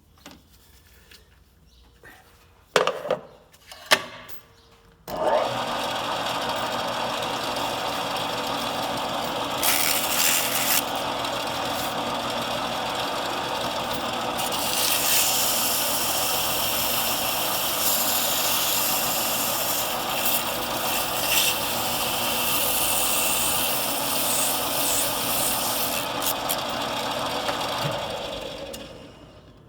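A power tool's motor switches on about five seconds in and runs steadily, spinning a Kent Moore injector tube reamer in its chuck while rust is rubbed off it with an abrasive, the rubbing growing louder at times; the motor winds down near the end. Two sharp clicks come before it starts.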